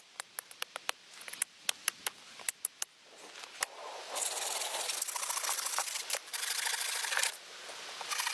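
Irregular sharp snaps and knocks of wood, then about three seconds of dense rustling or scraping of brush, and then more snaps.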